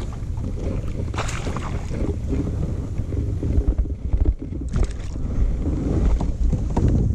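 Wind buffeting the microphone with a steady low rumble, over small splashes and knocks from the water beside a kayak as a hooked bass is fought and brought alongside. The sharpest splashing comes about four to five seconds in.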